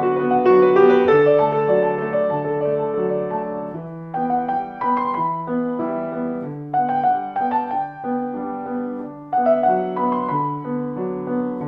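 Background piano music, a melody over held chords.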